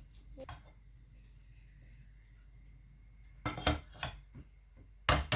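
Cutlery knocking and clinking against a plate in a few short separate strikes, the loudest near the end.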